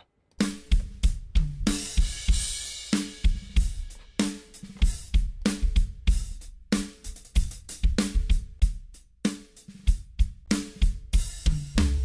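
A drum-heavy music mix (kick, snare, hi-hat and cymbals over a bass line), played back through a Carlec RQD6400 bus compressor for comparison with an SSL bus compressor. It starts about half a second in after a brief silence.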